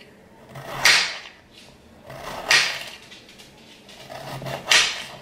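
Kitchen knife slicing through a cucumber, three slices about two seconds apart, each ending in a sharp tap of the blade on the cutting board.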